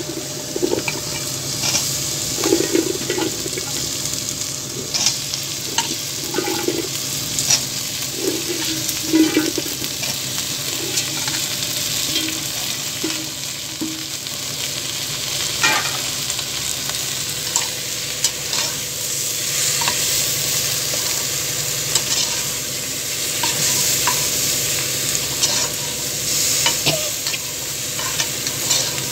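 Chopped okra tipped into a hot pan of frying onion and tomato and stirred with a perforated steel ladle: oil sizzling steadily under the scrapes and clinks of the ladle on the metal pan, with soft thuds of okra pieces landing in the first few seconds.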